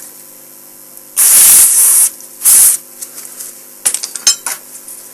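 Spray lubricant hissing out of an aerosol can in two bursts, a long one about a second in and a short one just after, worked into a squeaky mechanism to stop the squeak. A few light clicks follow.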